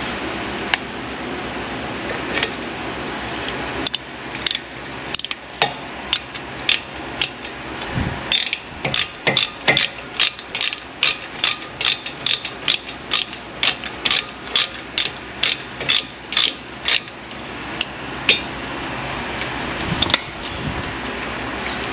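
Hand ratchet clicking as a socket turns a bolt on a car's front brake caliper. A few scattered clicks lead into a steady run of about two clicks a second through the middle, then a few scattered clicks again near the end.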